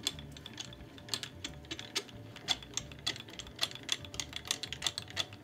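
Light, uneven mechanical clicking, about three clicks a second, from a Harbor Freight mini mill's table handwheel and leadscrew being cranked by hand to traverse the table.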